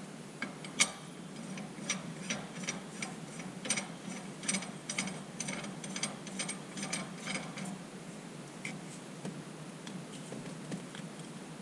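Hand ratchet clicking in quick strokes as a nut is run down, with a few scattered clicks near the end.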